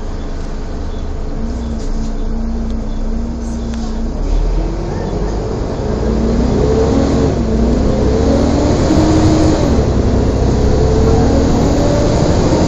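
Volvo double-decker bus engine and driveline pulling away and accelerating, with a whine that climbs in pitch, drops back and climbs again as it works up through the gears. The sound gets louder as the bus speeds up.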